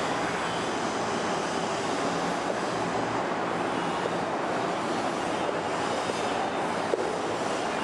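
Steady rushing background noise with a faint low hum underneath, unchanging throughout; a couple of small clicks near the end.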